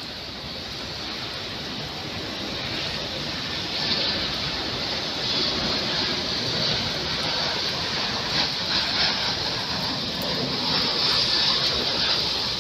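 Train moving along a station platform. Its noise builds over the first few seconds, then stays loud and steady with a hiss and a few clicks.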